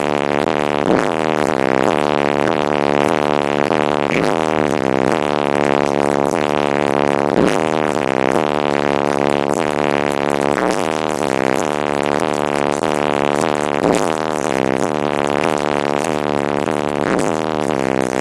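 Bass-heavy music played very loud through a car audio system with two 18-inch subwoofers, a dense pitched bass line that keeps stepping and changing.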